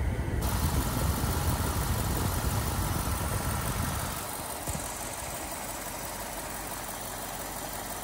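A BMW X5 E70 4.8i's V8 engine running with the air conditioning on, its A/C compressor and electric radiator fan working. A low rumble for the first four seconds gives way to a steadier, even rushing sound.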